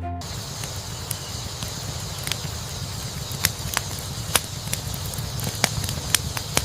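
A steady rushing noise with a low rumble, broken by irregular sharp cracks and snaps, mostly in the second half.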